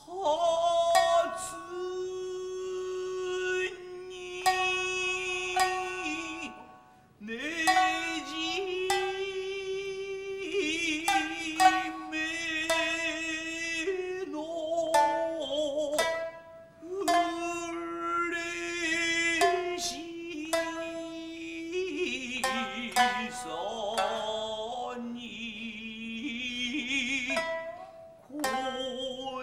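Kiyomoto-bushi jōruri: a chanter sings long held notes with a wavering vibrato over sharp plucked shamisen notes, the music dropping away briefly twice.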